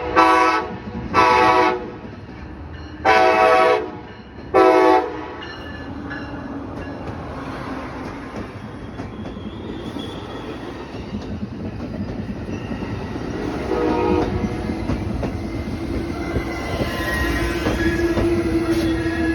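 Amtrak locomotive air horn sounding four blasts in the first five seconds, the third the longest, as a horn show. Then the train rolls in, with a fainter short horn note about fourteen seconds in and a steady squeal near the end.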